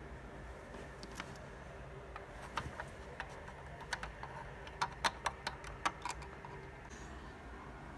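Light plastic clicks and taps of LEGO pieces being handled on a baseplate, scattered at first, then a quick run of sharper clicks about five seconds in.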